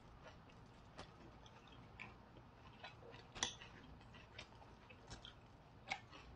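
Faint eating sounds: scattered soft clicks of chewing and of a spoon against a plate, the loudest about three and a half seconds in.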